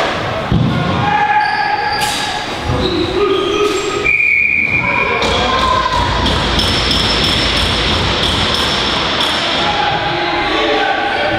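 Players and spectators shouting in a box lacrosse arena, echoing in the large hall, with repeated sharp knocks of sticks and ball on the floor and boards. A brief shrill steady tone sounds about four seconds in.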